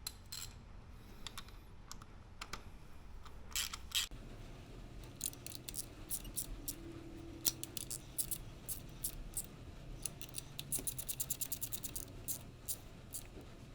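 Socket ratchet clicking in short runs as new spark plugs are screwed into the engine, threading in easily. Near the end comes a fast, even run of clicks.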